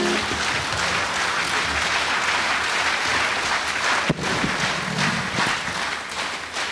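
Audience applauding steadily, with a brief dip about four seconds in.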